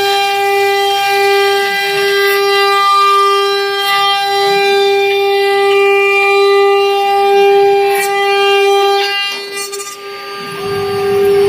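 Spindles of an eight-spindle CNC router whining at one steady high pitch while milling 3 mm aluminium. About nine seconds in the whine dips, and near the end a hiss of coolant mist spraying rises.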